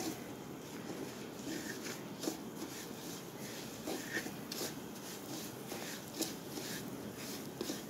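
Wooden spatula stirring and scraping semolina through ghee in a metal karahi, in soft irregular strokes: the semolina roasting on a low flame.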